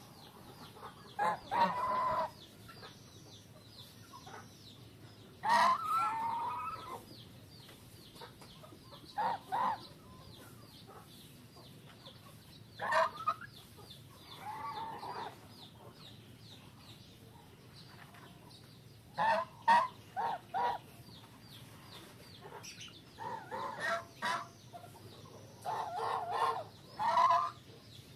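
White domestic geese calling in short honks at intervals of a few seconds, some in quick runs of three or four.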